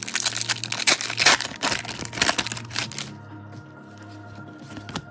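Foil wrapper of a Bowman baseball card pack being torn open and crinkled for about three seconds, then only a few light card-handling taps over steady background music.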